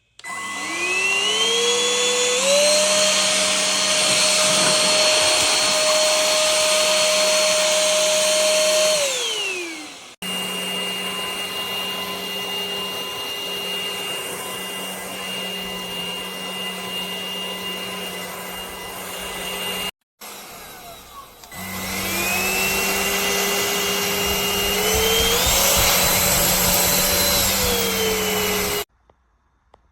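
Cordless stick vacuum motor spinning up with a rising whine that climbs in steps, running steadily for several seconds, then winding down. After a cut it runs at a steady pitch, then starts again, steps up in speed and stops abruptly.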